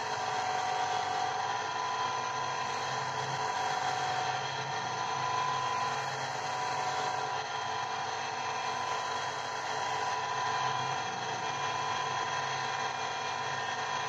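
Electric lapidary grinding machine running steadily, its spinning wheel grinding a gemstone cabochon held against it on a dop stick.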